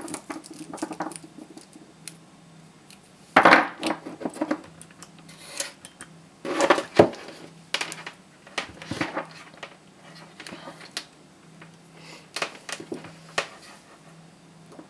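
Samsung SDI ICR18650-22E 18650 lithium-ion cells being handled and set down on a tabletop, knocking and clinking against each other. The knocks are scattered, and the loudest come about three and a half and seven seconds in.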